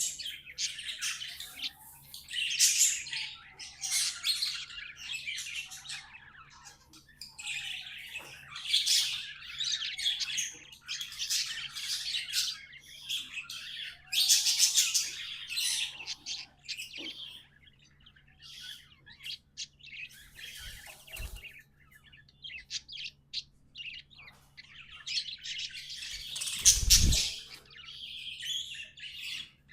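Budgerigars chattering and warbling in quick bursts of high chirps, with a short low thump near the end.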